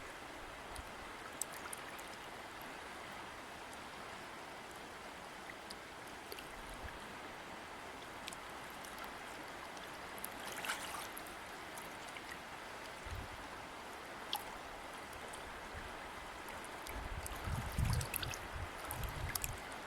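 River water flowing steadily, with small splashes and trickles. A few low rumbles come in near the end.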